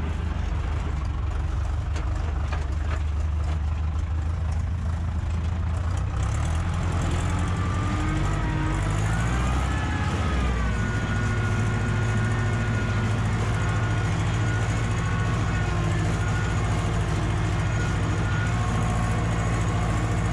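Ursus tractor engine running steadily while cultivating a field. Its engine note shifts about eight to ten seconds in, then holds steady again.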